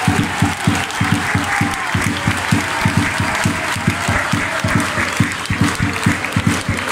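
Football crowd in the stand applauding, with hands clapping close by in a quick, steady run of about five claps a second.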